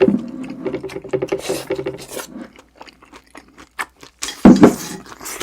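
Close-miked chewing of breaded, cheese-stuffed pork cutlet (cheese tonkatsu), wet mouth sounds, with a short, loud crunch about four and a half seconds in.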